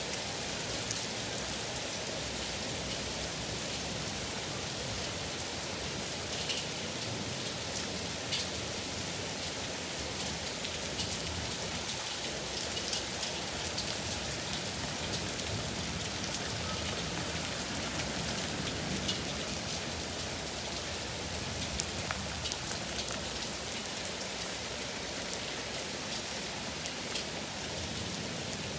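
Heavy rain falling steadily, with scattered sharp ticks of single drops striking close by.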